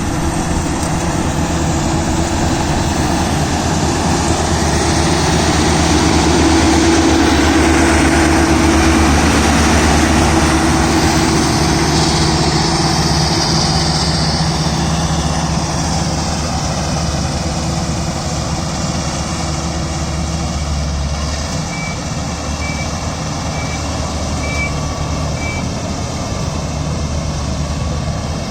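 Combine harvester running steadily, its engine and machinery making a loud, continuous hum. About three-quarters of the way through, five short, high beeps sound evenly spaced, under a second apart.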